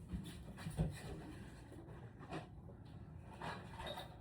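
Faint rustling with a few small knocks and clicks as objects are handled and moved about during a search.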